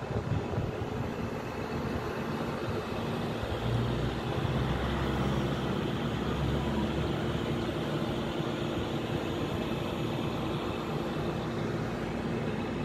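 Steady background hum with a low rumble that swells from about four to seven seconds in.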